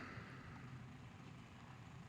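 Near silence: faint room tone with a weak low hum.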